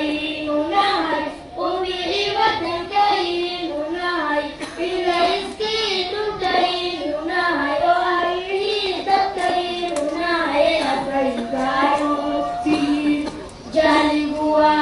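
Young voices chanting a melody with long held, wavering notes.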